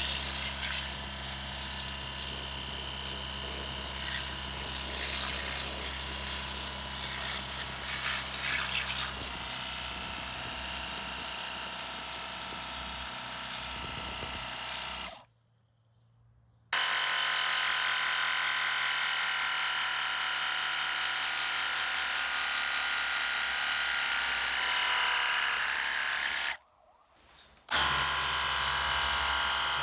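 Parkside PDRA 20-Li D4 cordless pressure washer running: a steady electric pump-motor hum under a strong spray hiss, cutting out abruptly twice for about a second, near the middle and near the end.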